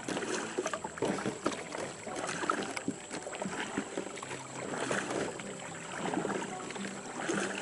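Kayak paddle strokes: the paddle blades dipping and pulling through the creek water, splashing and dripping in a steady rhythm, with a swell about every two and a half seconds.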